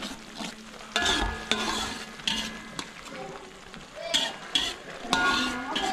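Chili sambal sizzling as it fries in a metal wok, while a metal spoon stirs it, scraping across the pan several times.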